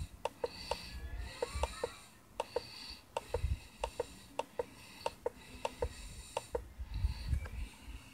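Quick runs of sharp clicks, several a second in uneven groups, over patches of high steady ringing, played from a television.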